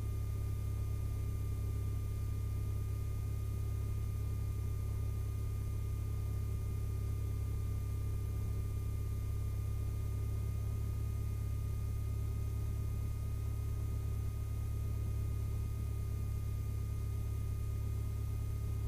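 Lycoming IO-360 four-cylinder, fuel-injected aircraft engine idling after a start, heard from inside the cockpit as a steady low drone, with a thin steady whine above it.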